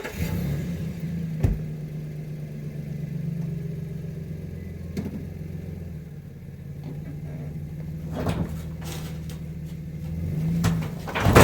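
Van engine running at a steady low speed, then shutting off just before the end, with a few sharp clicks or knocks along the way.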